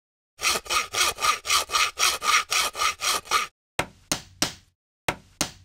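Hand saw cutting wood: a run of about a dozen quick back-and-forth strokes, about four a second, then two short bursts of three strokes each.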